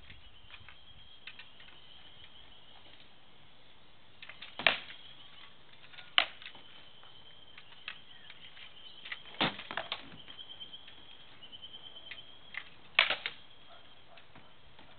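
Armoured sword sparring: sword blows landing on shields and armour as sharp knocks, four loud ones spaced a few seconds apart with lighter clacks between. A high, steady chirping carries on behind.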